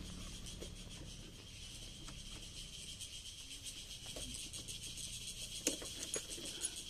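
Insects chirring steadily, a fast pulsing high buzz, with a few faint metallic clicks and knocks, the sharpest about two-thirds of the way in.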